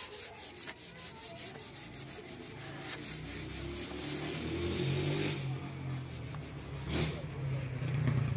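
Sandpaper rubbed by hand along a wooden table leg in quick, even back-and-forth strokes, about five a second. A low drone comes in during the second half.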